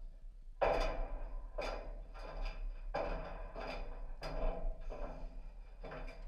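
Bison herd crowding through corral pens: a run of rough clattering knocks, one or two a second.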